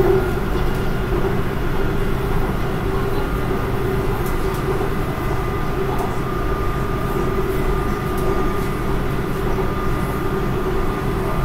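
Inside a BTS Skytrain Green Line carriage running along the elevated track: a steady rumble of the train in motion with a steady whine over it.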